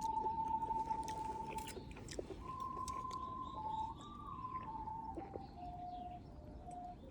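Alto recorders playing a slow melody in long held notes, at times two parts together. Short clicks and crunches of someone eating sound under the music.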